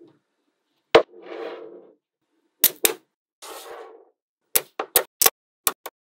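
Small metal magnetic balls clicking sharply as slabs of them snap together and onto the model: a single click, two quick clicks, then a fast run of five or six near the end. Between them come two short rough rubbing noises of the ball slabs being slid into place.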